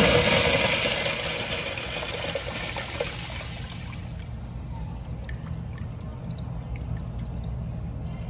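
American Standard Washbrook urinal flushing from its flush valve: water rushes over the bowl and screen, loud for the first few seconds, then dies down to a trickle as the valve closes.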